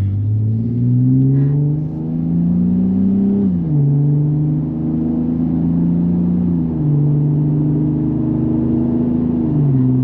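The 3.6L V6 of a Ram 1500 through a Magnaflow Pro Series turn-down cat-back exhaust, heard from inside the cab while accelerating. The engine note climbs steadily, drops sharply about a third of the way in as the transmission upshifts, then runs at a steadier pitch with two smaller downward steps later on. Tame and quiet.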